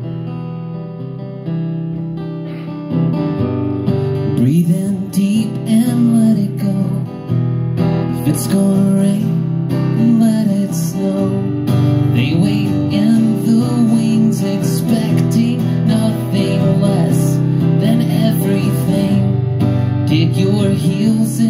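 Acoustic guitar strummed live, opening a song, getting louder about three seconds in; a man's singing voice joins about four seconds in.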